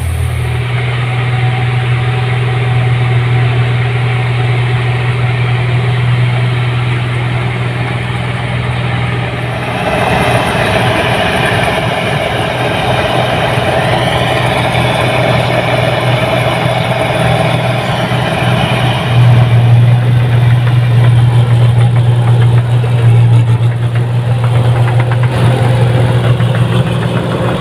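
Rice combine harvester's engine running at a steady speed, with a low, even hum. About ten seconds in the sound gets busier, with a higher whine over the hum for several seconds, and a little past the middle it steps up louder.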